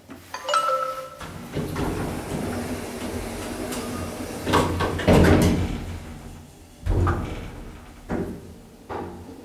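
Elevator car's automatic sliding door running shut after a floor button is pressed, with a short beep at the press and a loud thud about five seconds in, then a few fainter knocks.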